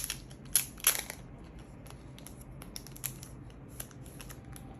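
Plastic wrapping of a photocard pack crinkling and tearing as it is opened by hand: a few sharp rips in the first second, then light rustles and clicks.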